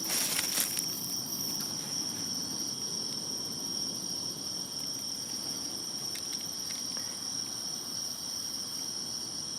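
Insects trilling steadily outdoors, several high-pitched calls holding at once without a break. A short burst of hiss sounds in the first second or so.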